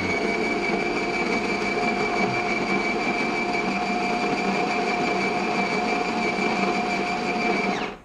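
Coffee machine's built-in grinder running, the start of its brew cycle: a loud, steady grinding whir with a steady whine that stops abruptly after about eight seconds.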